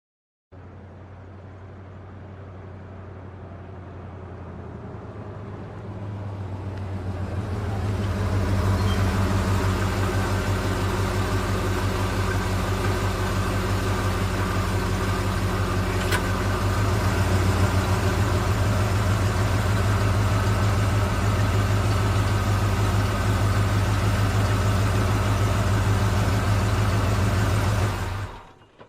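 A motor-vehicle engine running at a steady low pitch, growing louder over the first eight seconds or so, then holding steady before cutting off suddenly near the end.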